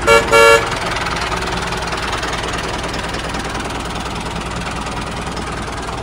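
A vehicle horn toots twice in quick succession, then an engine runs steadily.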